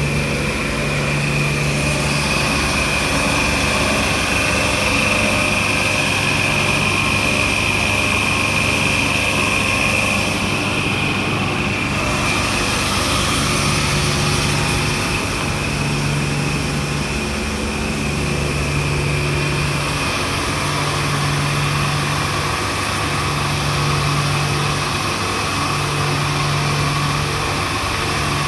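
SW500 poultry slat washer running: a steady machine drone with a high whine, and a low hum that cuts in and out about every two seconds, mostly in the second half.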